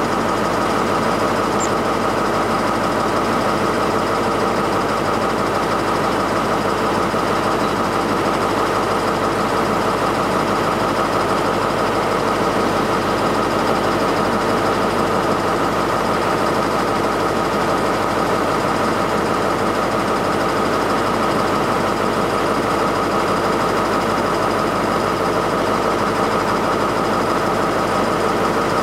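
Diesel train engine idling steadily, an even drone with a constant pitch and level.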